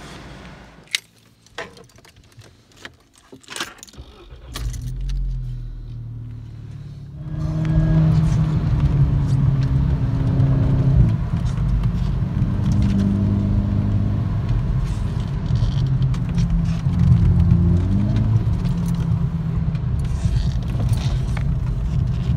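Keys jangling with a few clicks and knocks, then a low rumble. From about seven seconds in, a Volkswagen GTI is heard driving from inside the cabin: steady engine and road noise, the engine pitch rising and falling a few times.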